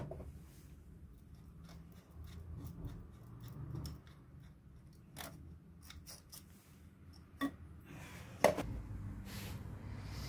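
Light plastic clicks and rattles as the Landi Renzo LPG injector rail and its wiring connectors are handled by hand, with two sharper clicks about a second apart late on.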